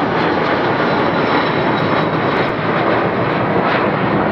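Boeing 747-400's four Rolls-Royce RB211 turbofan engines at takeoff thrust: a loud, steady jet noise with a faint high whine on top.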